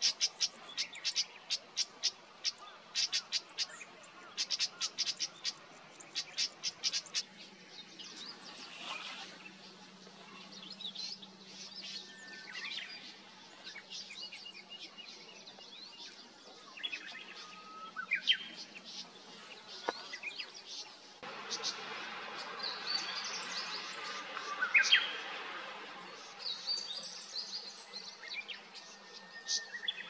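Small songbirds calling: a quick series of hard clicking calls for the first several seconds, then scattered chirps and short whistled notes. About two-thirds of the way in, the background hiss steps up.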